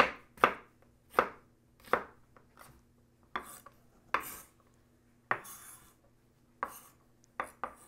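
Kitchen knife slicing jalapeños on a wooden cutting board: a series of sharp knocks as the blade strikes the board, about two a second at first, then spaced further apart.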